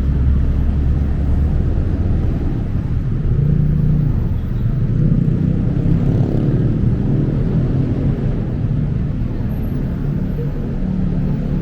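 Busy city road traffic: engines of vehicles running close by, a steady low rumble with its pitch shifting as they pass.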